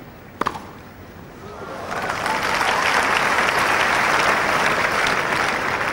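A tennis ball struck once by a racket about half a second in, then crowd applause swelling from about two seconds in and holding loud, greeting a return winner.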